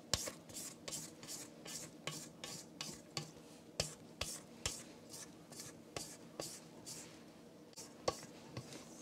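Spatula scraping thick chocolate buttercream icing off the sides of a stainless steel mixing bowl, in faint, quick repeated strokes about two or three a second.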